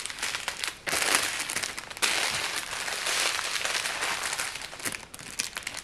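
Small plastic bags of diamond-painting rhinestones crinkling as they are handled and packed back into their packaging: a continuous rustle with many small crackles.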